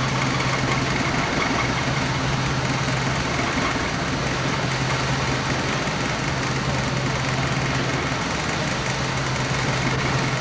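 Pusher tug's diesel engine running steadily, heard from its wheelhouse as a constant low hum under an even mechanical noise.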